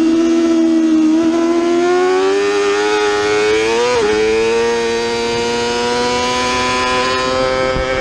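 Yamaha R6 inline-four sport bike engine running at high revs under throttle, its pitch climbing slowly as the bike accelerates, with one quick upshift from second to third gear about halfway through.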